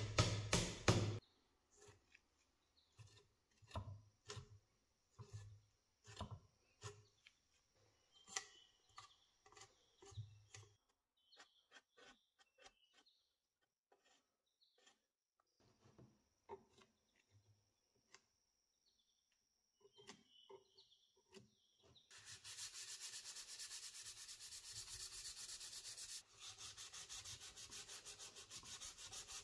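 Hand sanding of an old wooden box with a small piece of sandpaper: quick, steady rubbing strokes over the last several seconds. Before that come sparse light taps and scrapes on the wood, and background music cuts off about a second in.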